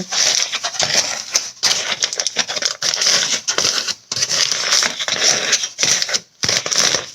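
Aluminium foil crinkling and crackling as a long strip is folded over and pressed flat, in dense runs broken by a few short pauses.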